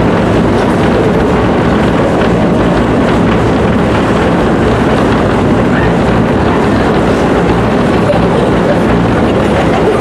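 Earthquake simulator running its simulated quake: a loud, steady deep rumble like a passing train.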